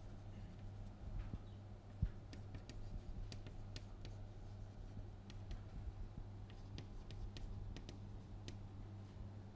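Chalk writing on a chalkboard: irregular small taps and scratches as the letters are formed, over a steady low electrical hum. One louder knock about two seconds in.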